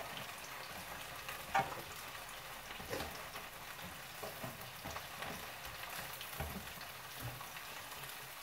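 Chopped onions sizzling as they fry in hot cooking oil in a frying pan, a steady hiss with a few light knocks, the sharpest about one and a half seconds in.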